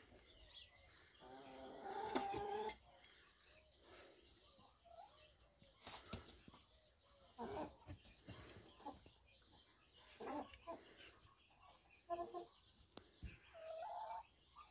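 Chickens clucking quietly now and then, with a longer pitched call about two seconds in.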